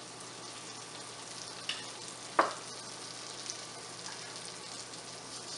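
Egg paratha sizzling in butter on an iron tawa, a steady frying hiss. A single sharp tap stands out about two and a half seconds in.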